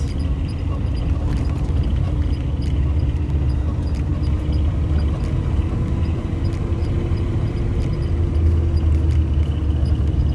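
Off-road vehicle's engine running under load while driving a snowy trail: a steady low rumble, with the engine note creeping slowly higher, and occasional light clicks.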